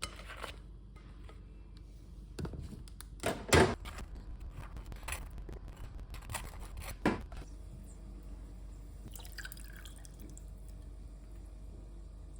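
A handful of light knocks and clinks in a small room, the loudest a double knock about three and a half seconds in and another about seven seconds in, then faint room noise.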